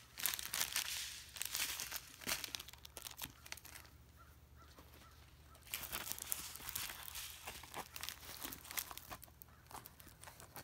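Crinkling and rustling of plastic packaging as a diamond painting kit is handled: a cellophane bag of bead packets, then a rolled canvas in its plastic film being unrolled. The rustling eases off for a couple of seconds in the middle.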